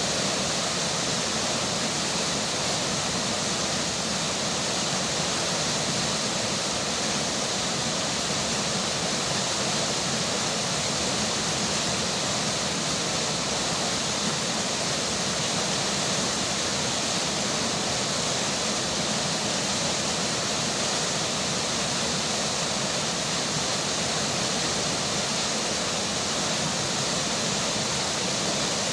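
Flowing river water and falling rain: a steady, even rush of water with no breaks.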